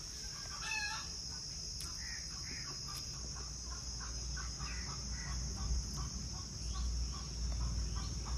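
Domestic chickens clucking: a string of short calls, with a louder call a little under a second in.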